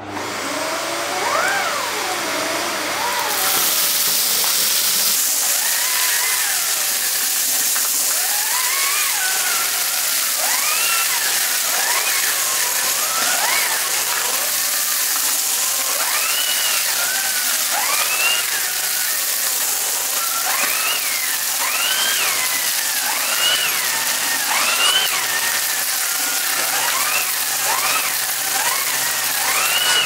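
Bosch Series 2 bagged vacuum cleaner running at maximum power with its turbo-brush nozzle on thick shag carpet: a steady loud rush of air with a motor whine that rises and falls in pitch about once a second as the nozzle is worked back and forth.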